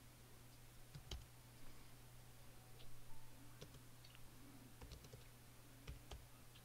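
Faint keystrokes on a computer keyboard, a few scattered clicks with short pauses between them, over a steady low hum.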